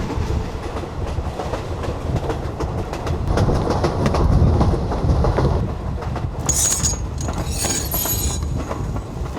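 Passenger train running on the rails: a steady rumble with the clatter of the wheels. About two-thirds of the way through come two short bursts of high-pitched squeal.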